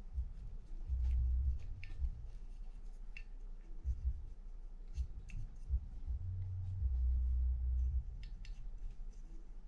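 Handling noise as grease is dabbed into a Daiwa BG30 reel's plastic body with a small applicator stick: dull low thumps and rumbles from the housing being held and turned, the longest late on, over faint light clicks and scrapes.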